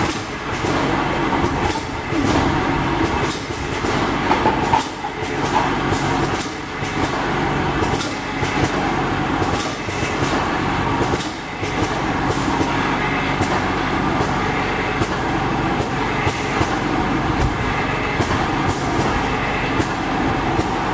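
Automatic rotary bottle capping machine running: a steady mechanical rattle with frequent sharp clicks and clinks, about one or two a second, as glass bottles move through the star wheel and along the conveyor.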